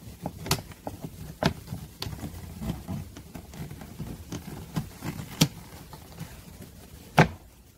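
Hard plastic clicking and ticking as the interior door handle and its surround are prised out of a 1998 Ford Laser's door trim panel, with one louder snap near the end as it comes free.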